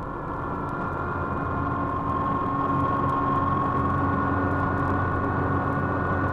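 Electronic science-fiction sound effect from a 1958 record: a steady drone of several held tones over a dense hiss-like noise bed, swelling in loudness over the first two seconds and then holding level.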